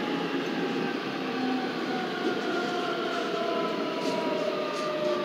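Busan Metro Line 2 subway train heard from inside the car as it slows into a station: a steady running rumble with a whine that slowly falls in pitch from the electric traction motors under braking.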